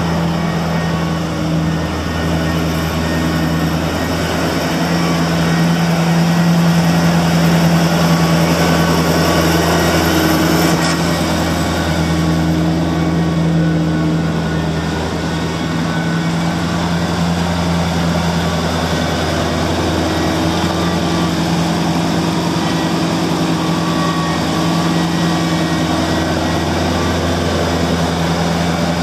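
New Holland TC45DA compact tractor's diesel engine running at a steady speed as the tractor is driven around, getting slightly louder several seconds in.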